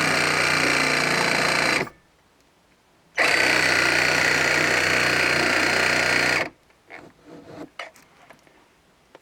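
Cordless reciprocating saw running at speed with a steady high whine. It stops after about two seconds, starts again after a short pause and runs for about three more seconds. A few light knocks and clatters follow.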